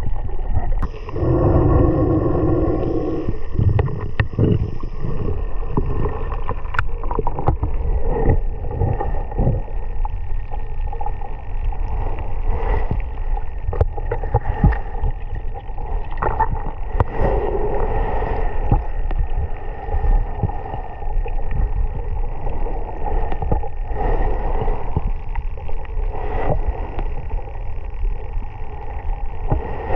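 Muffled sound of a snorkeller in the water: water sloshing and bubbling, with scattered small clicks and knocks.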